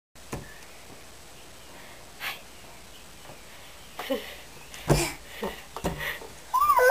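A baby's breaths and small vocal sounds, with a few sharp knocks as her hands pat and grab wooden cupboard doors. Near the end comes a high squeal that glides up and down.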